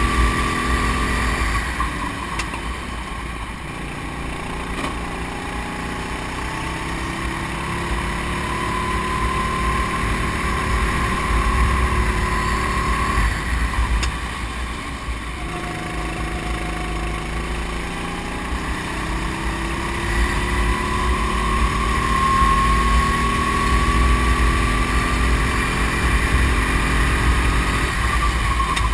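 Go-kart engine heard from onboard, its pitch climbing slowly under acceleration and then falling off sharply, once about halfway through and again at the very end. Wind rumbles on the microphone underneath.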